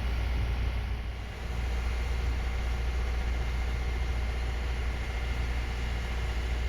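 Sailing yacht's engine running steadily as the boat motors along under power, a steady low rumble with a hiss over it.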